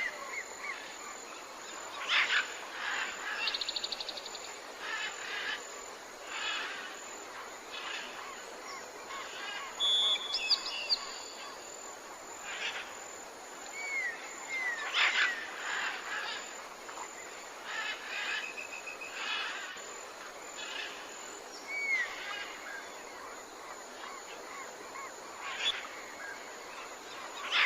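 Tropical forest ambience: a steady hiss of insects and background with many different birds calling over it, short whistled notes that rise or fall, a fast trill and a few brief rattling calls.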